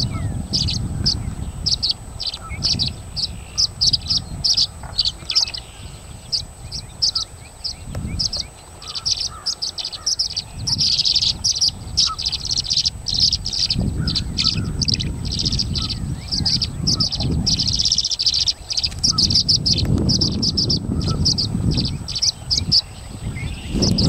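Tree swallows chirping and twittering in a rapid, continuous stream of short high calls, made by several birds competing for a nest box.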